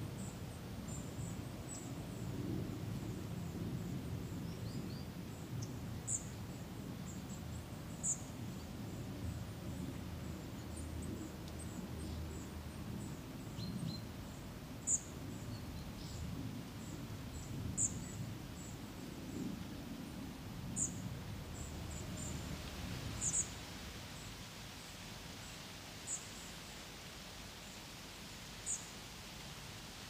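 A small songbird calling with short, high chirps every two to three seconds over a steady low outdoor rumble, which gives way to a soft hiss in the last third.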